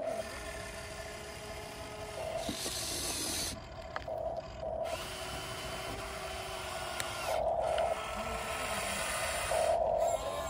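Small electric motors and gearboxes of Huina radio-controlled construction vehicles whirring, swelling in several short spurts as the controls are worked, with a few rising and falling tones and light clicks.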